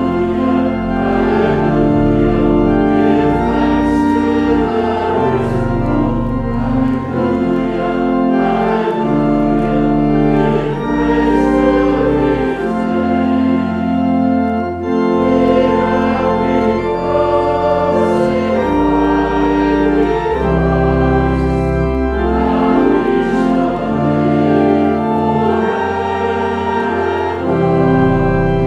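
Organ accompanying a congregation singing a hymn, with held chords that change about every second or two.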